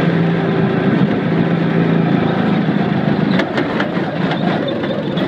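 Go-kart engine running steadily as the kart drives around the track, with a few sharp clicks or rattles between about three and four and a half seconds in.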